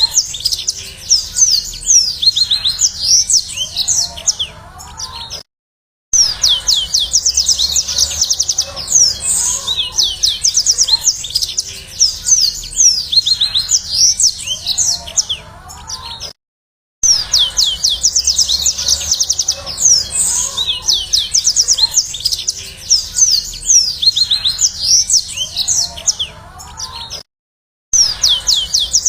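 Yellow-fronted canary (Mozambique canary) singing a fast, high chattering song of trills and chirps. The recording is looped, with a brief dead-silent gap about every 11 seconds.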